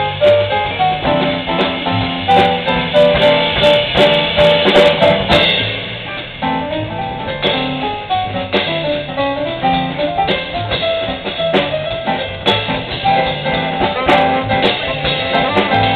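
A small jazz band playing live: drum kit with sharp rimshot and cymbal strikes over guitar, keyboard and upright bass, with a melody line running throughout.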